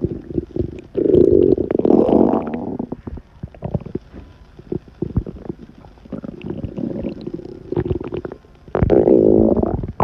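A woman's stomach rumbling and gurgling as it digests a burger. A loud, long growl starts about a second in and lasts about two seconds; softer gurgles follow; a second loud growl comes near the end.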